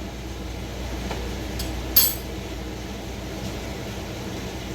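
Steady hum of a room air conditioner, with a single light clink of a utensil or dish about two seconds in.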